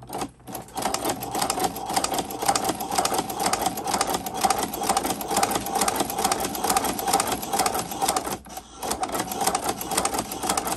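Hand-cranked walking foot cobbler sewing machine stitching leather: a fast, even clatter of needle bar, walking foot and shuttle turned by its heavy flywheel, with a brief pause about eight seconds in before the cranking resumes.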